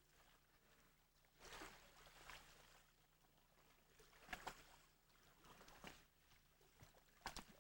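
Near silence, with a few faint, brief rushing sounds over a low steady hum.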